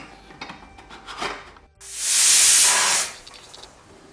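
Pressure cooker whistle: a sharp burst of escaping steam hissing for about a second, about two seconds in, after a few light clinks of metal.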